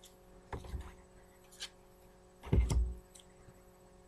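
Handling noises from a trading card in a hard plastic holder being picked up and moved: a few short clicks and rustles, with one louder knock and rustle about two and a half seconds in.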